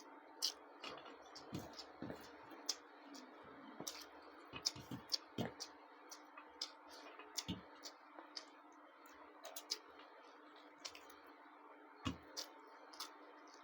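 Close-up eating sounds: irregular wet clicks and smacks of a person chewing, sometimes several a second, over a faint steady hum.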